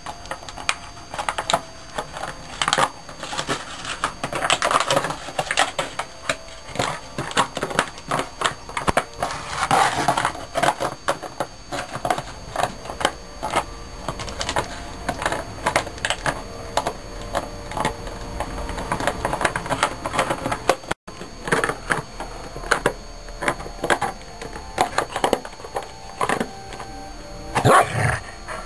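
A Dalmatian chewing a plastic PET drink bottle: a dense, continuous run of crackling, clicking crunches as its teeth crush the thin plastic.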